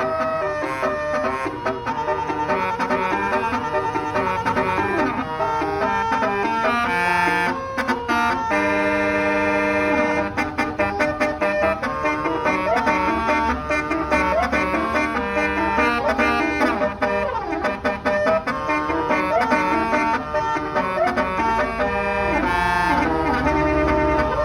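Roof-mounted basuri telolet horn on a tour bus playing a long melody of stepping and held reedy notes, with some chord-like sustained passages. A low rumble rises underneath near the end.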